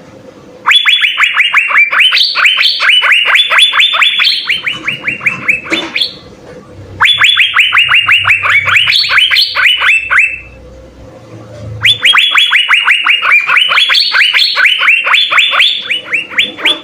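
Asian fairy-bluebird (cucak biru) singing loudly in three long bursts of rapid, repeated notes, each note sliding down in pitch, several a second.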